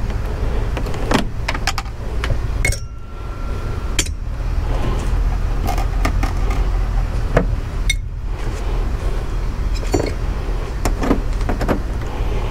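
Scattered, irregular metallic clicks and clinks of a ratchet wrench and loose fasteners as bolts on a car's front bumper support are worked loose, over a steady low rumble.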